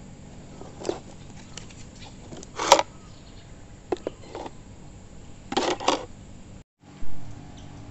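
Light plastic clicks and knocks as a plastic lunch box and its plastic forks and spoons are handled: a handful of separate taps, the loudest about three seconds in and a quick pair near six seconds.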